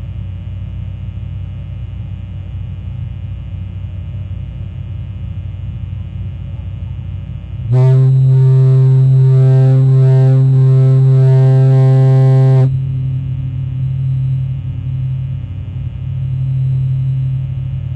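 Foghorn sounding one long blast of about five seconds, a deep, loud tone rich in overtones that starts and cuts off abruptly, the low note lingering briefly after it. A steady low hum runs underneath throughout.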